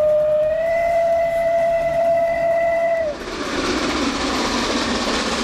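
ČSD class 423 steam locomotive giving one long, steady steam-whistle blast that cuts off about 3 s in. After that comes a steady rushing noise from the steam locomotive Albatros 498.104 as it approaches through a stone cutting.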